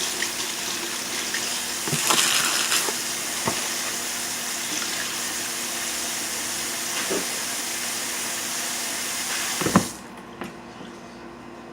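Water running steadily from a tap, then shut off about ten seconds in with a knock.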